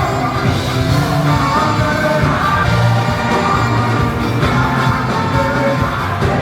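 Live worship music with singing, steady and continuous.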